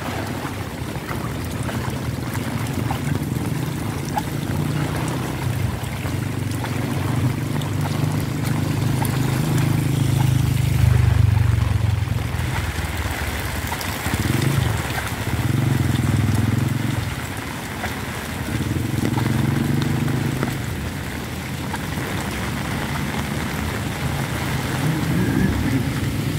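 Heavy typhoon rain falling on a flooded street and on umbrellas, a steady hiss, under a shifting low rumble of wind and road traffic that swells loudest about ten seconds in.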